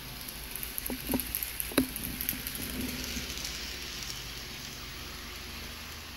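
N scale Shinkansen 0 Series model train running on the layout track: a steady rolling hiss, with a few sharp clicks between about one and two and a half seconds in.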